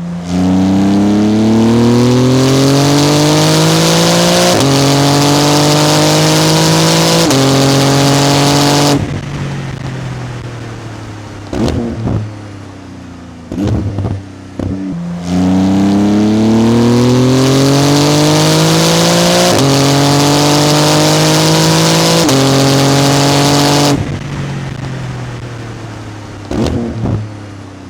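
Porsche 991 GT2 RS twin-turbo flat-six accelerating hard on a racetrack, the note rising through the gears with two upshifts, then lifting off with a few short bursts as it slows. The same run is heard twice.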